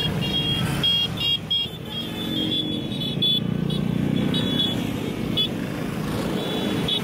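Several Vespa scooter engines running together as a group rides along, a steady mixed engine rumble. Short high-pitched beeps recur over it throughout.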